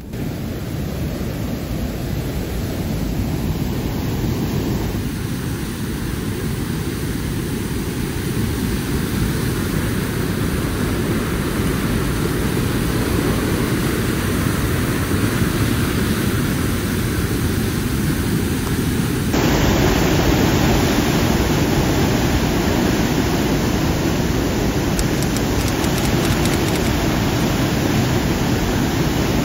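Heavy rain and rushing water: a loud, steady, deep rushing noise that shifts abruptly about five seconds and again about nineteen seconds in.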